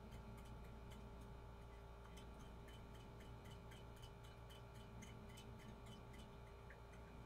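Near silence: room tone with a low steady hum and faint ticking, a few ticks a second.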